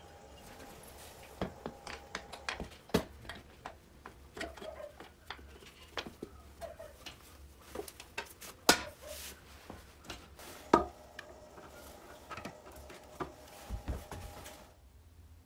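Scattered light clicks, taps and knocks of gloved hands handling and fitting parts on a restored Riga-12 moped, with two sharper knocks about nine and eleven seconds in; the handling stops shortly before the end.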